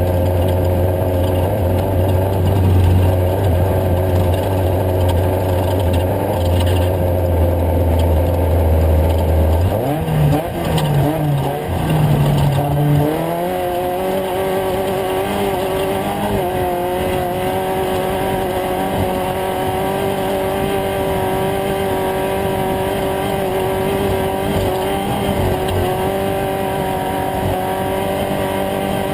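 Race vehicle engine running steadily under power; about ten seconds in its note breaks up and shifts, then it settles into a higher steady note with a small step up a few seconds later.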